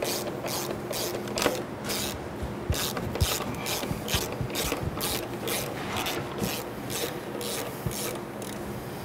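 Ratchet wrench on a long extension clicking in a steady run, about three clicks a second, as it turns in socket head screws to mount a spindle motor.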